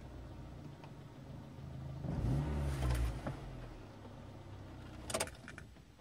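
1997 Renault Twingo's four-cylinder petrol engine idling, heard from inside the cabin, with one brief rev that rises and falls about two seconds in. Near the end a sharp click and a jingle of keys come as the ignition is switched off, and the engine falls quiet.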